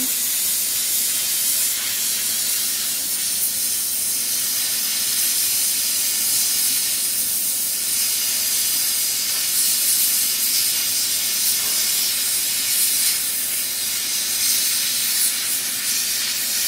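HHO (oxyhydrogen) torch flame hissing steadily as it heats thick metal for brazing.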